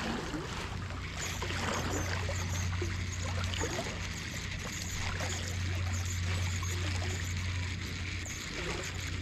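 Small waves lapping and trickling among the rocks of the shoreline, over a steady low rumble.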